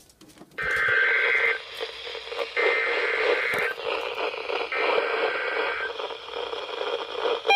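Emergency Alert System SAME header: three bursts of warbling two-tone digital data, each about a second long with about a second between them, heard through the heavy hiss and static of a radio receiver.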